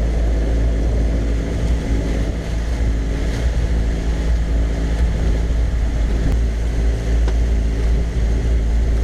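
Small passenger boat's engine running steadily at cruising speed, a constant drone under a loud low rumble.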